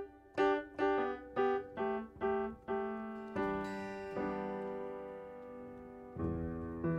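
Background music on a keyboard: notes struck about twice a second, then held chords that change near the end.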